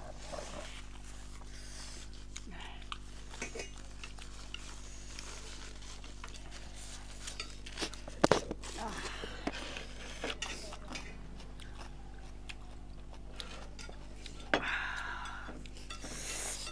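A person eating noodles and dumplings close to the microphone: chewing, with cutlery clicking against a dish, the sharpest click about eight seconds in, and a longer noisy burst near the end. A steady low hum runs underneath.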